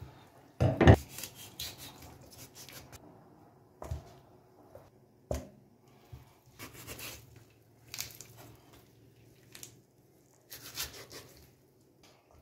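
A cleaver knocking against a wooden cutting board as a raw rooster is cut up, the loudest chop about a second in and a few lighter knocks after. Between them come the rustle and clatter of the raw pieces being handled and put into a stainless steel bowl.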